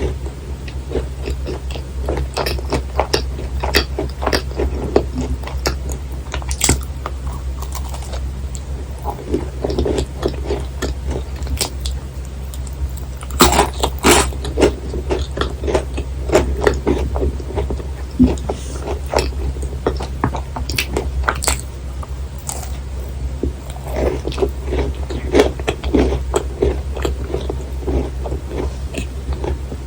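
Close-miked chewing and biting of thick-filled macarons: irregular wet, sticky mouth clicks and soft crunches of the shell, with the sharpest bites about halfway through, over a steady low hum.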